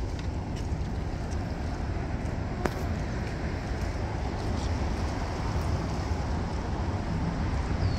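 Steady outdoor urban background rumble, with distant traffic noise heavy in the low end, and a single sharp click about two and a half seconds in.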